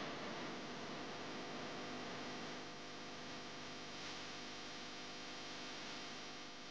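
Steady hiss with a faint low hum and no distinct events: the background noise of the recording.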